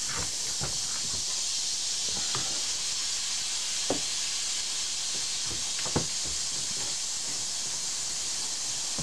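A steady hiss with a handful of light clicks and knocks, the clearest about four and six seconds in.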